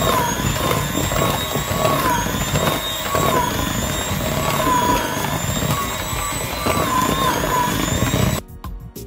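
Electric hand mixer running, its twin beaters whisking whiskey into thick whipped double cream. The motor's whine wavers a little as it works, then stops abruptly about eight seconds in, leaving background music.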